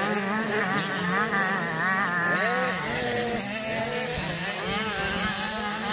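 Several 85cc two-stroke motocross bike engines racing, their pitch rising and falling quickly and repeatedly as the riders open and close the throttle and change gear.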